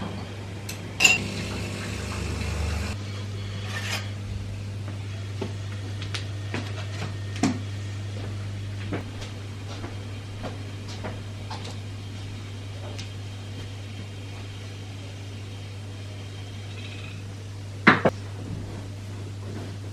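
Household handling sounds: scattered light clicks and knocks of small hard objects over a steady low hum. A rush of noise runs for about two seconds starting a second in, and two sharp knocks come near the end.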